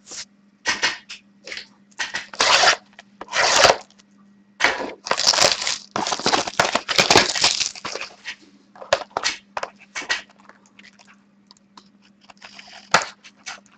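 Packaging of a sealed box of hockey trading cards being torn open and handled, in irregular bursts of crinkling and tearing, the longest about five to eight seconds in.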